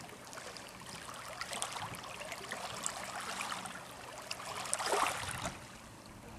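Water lapping and splashing in small waves, with a steady trickling crackle and a louder splash about five seconds in.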